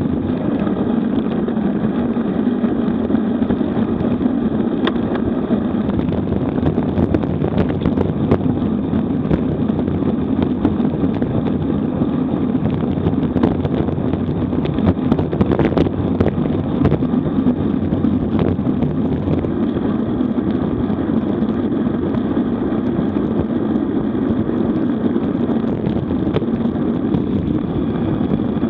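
Steady rush of wind on a bike-mounted camera's microphone, with road-bike tyre roar on asphalt, during a fast descent at about 40–50 km/h. A few faint clicks from the bike over road bumps.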